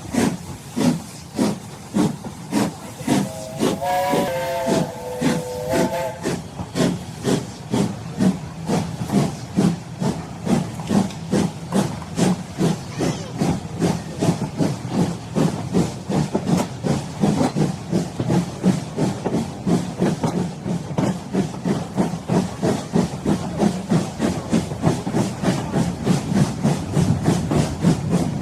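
Steam locomotive chuffing, its exhaust beats quickening as it gathers speed. A chime whistle blows for about three seconds near the start.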